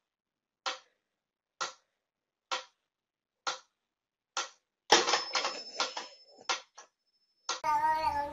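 Mechanical pyramid metronome ticking steadily, about one tick a second. About five seconds in comes a sudden clatter followed by a run of irregular rattling clicks. Near the end a cat begins a long meow.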